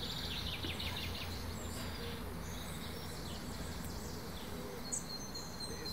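Outdoor park ambience: a steady low rumble with small birds chirping in quick short notes during roughly the first second.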